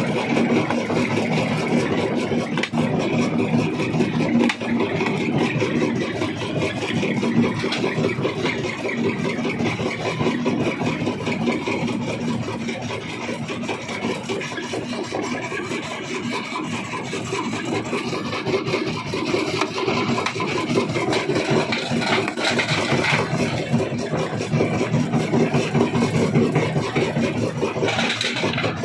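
Rock crusher machine running: a steady engine-like hum with rock clattering through it.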